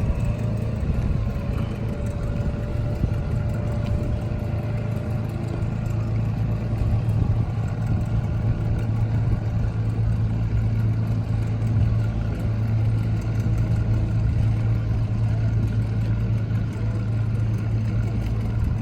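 Motorboat engine running steadily, a deep, even drone with fainter engine tones from other boats mixed in.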